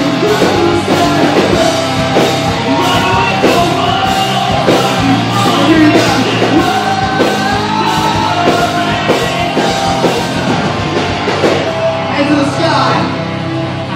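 Live alt-metal/hard rock band playing loud: distorted electric guitar, bass and a pounding drum kit, with a singer's voice over them.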